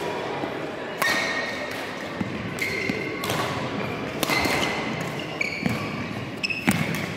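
Badminton rally in a large hall: five sharp racket strikes on the shuttlecock, a second or more apart, with short high squeaks of shoes on the court floor between them.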